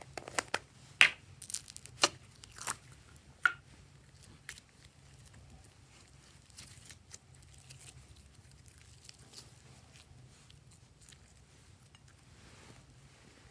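A large mass of mixed slime pressed, stretched and peeled up by hand, giving a run of sharp pops and clicks in the first few seconds, then fainter sticky crackling.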